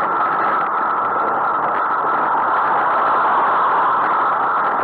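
Steady rushing wind and road noise from a moving bicycle on a main road, with motor traffic passing; it swells slightly about three seconds in as a car overtakes.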